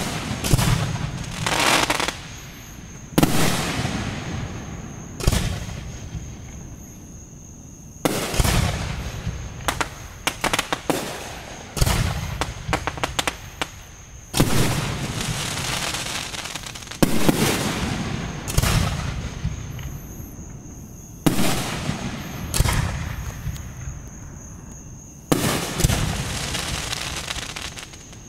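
Aerial fireworks shells bursting one after another, a loud bang about every two to three seconds, each dying away over a second or two, with a quick run of sharp crackling pops in the middle.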